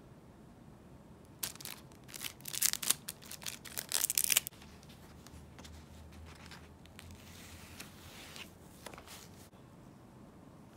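Tearing and crinkling noises: a quick run of sharp rustles from about one and a half to four and a half seconds in, then fainter rustling near the end.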